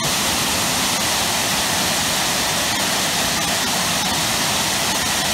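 Waterfall pouring into a plunge pool: a loud, steady rush of falling water.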